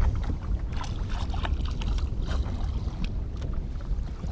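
Wind rumbling on the microphone, with choppy lake water lapping and splashing against the side of a fishing boat.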